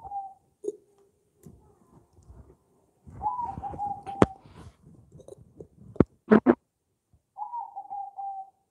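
A man's drawn-out, hoot-like moans, each about a second long and sinking slightly in pitch, heard twice: the mediator, possessed during the ruqyah. A few sharp knocks fall between and after the moans.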